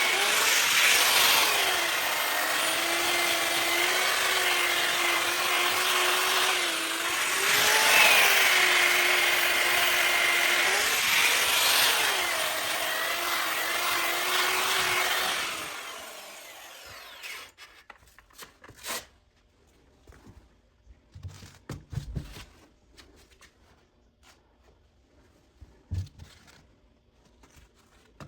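Variable-speed grinder with a sanding pad running against a cast iron skillet, sanding it down to bare metal: a steady motor whine with gritty scraping that sags briefly a few times as the pad bears on the pan. About sixteen seconds in it spins down and stops, followed by a few faint knocks and clicks.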